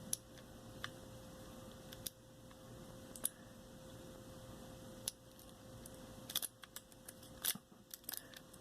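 Faint, irregular metallic clicks and ticks of a homemade lock pick, ground from a Swiss Army knife blade, being zipped and worked against the pins in the keyway of a Master Lock 410 lockout-tagout padlock, with a small cluster of clicks near the end.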